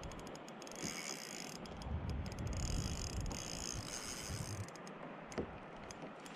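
Spinning reel on a light rod ticking and whirring in two runs, the first about a second in and a longer one from about two and a half to four and a half seconds, then a few single clicks, as a snapper is played on the line.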